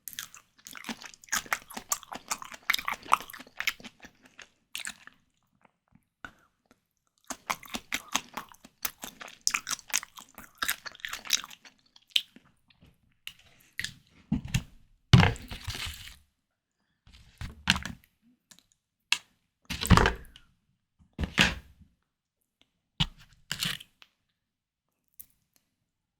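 Close-miked chewing of peeled white tiger prawns, with wet, crackly mouth sounds in two long spells. In the second half the chewing gives way to several separate, louder and fuller bursts.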